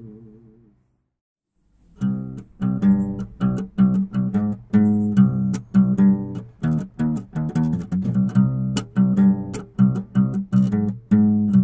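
Background music of quickly plucked guitar notes. It fades out just after the start, goes silent for about a second, then starts up again.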